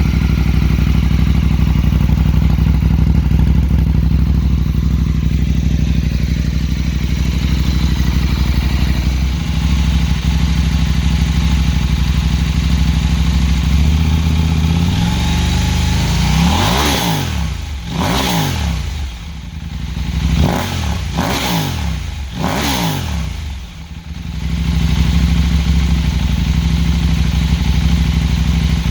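Husqvarna Norden 901's parallel-twin engine running through an Arrow mid-pipe (catalytic converter deleted) and an Akrapovic muffler. It idles steadily, then rises in pitch and is blipped about five times in quick succession, the note shooting up and falling back each time, before settling back to idle.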